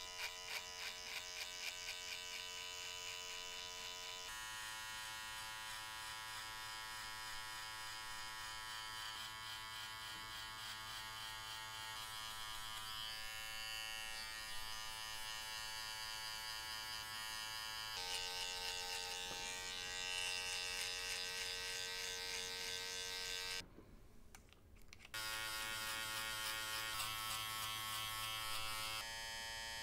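Electric hair clippers buzzing steadily while cutting short hair at the sides and nape. The buzz stops for a moment about two-thirds of the way through.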